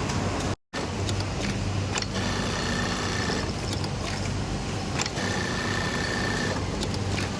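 Industrial sewing machines running: a steady mechanical hum, with a machine whining up twice for about a second and a half each time, and a few sharp clicks. The sound cuts out completely for a moment about half a second in.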